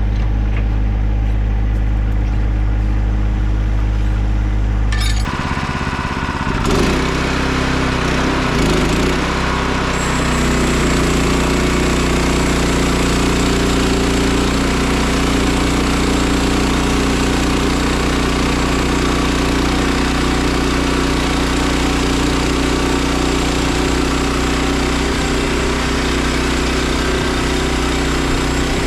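Band sawmill's gasoline engine idling, then throttled up about five seconds in. After a few seconds of change it settles into steady running at speed, with a thin high whine over the engine noise.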